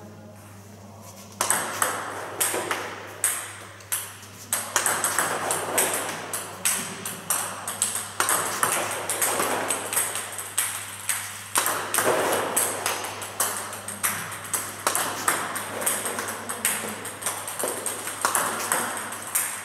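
Table tennis ball clicking in quick sharp ticks during repeated topspin serves: each serve is a bat strike and bounces on the table. The clicks begin about a second and a half in and come two or three a second.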